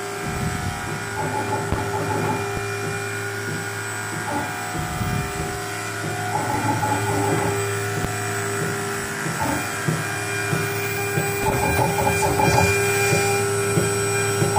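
6040 CNC router milling a plywood board: the spindle runs with a steady whine. Several times, a second or so at a time, a busier rattling pattern joins in as the axes move and the bit cuts shallow grooves.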